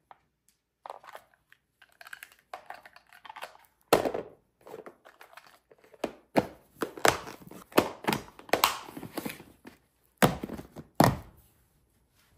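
Sistema plastic lunch boxes being closed and handled: lids pressed and clipped shut and the boxes set down and moved on a wooden cutting board, a string of sharp plastic knocks and clicks with handling noise between. The loudest knock comes about four seconds in, and two more come close together near the end.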